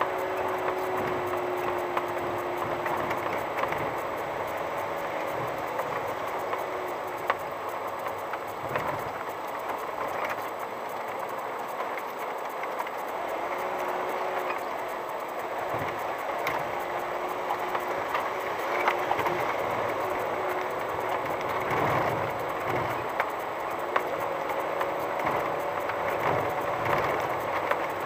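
VW T5 California van crawling along a rough, unpaved dirt track: a low engine hum under steady tyre and road noise, with scattered knocks and rattles as the van goes over the stony, rutted surface.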